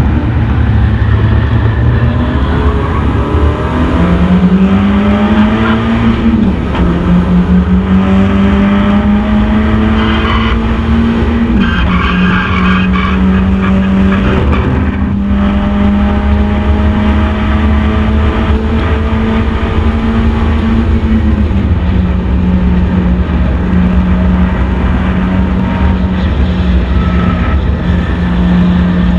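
Mazda MX-5 race car's four-cylinder engine at racing speed under load. The revs climb and drop sharply at gear changes several times. Tyres squeal briefly through a corner about ten to thirteen seconds in.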